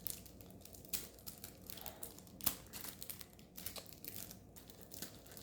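Plastic packaging of a diamond-painting kit crinkling and rustling in fits and starts as it is pulled and worked at to get it open.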